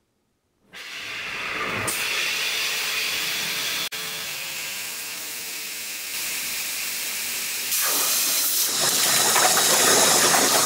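Compressed air hissing steadily from an air blow gun held on a check valve, continuously pressurizing a water-filled soda bottle while it drains. Near the end the rush grows louder and rougher as water and air spray out of the feed tube and splash into a plastic bucket.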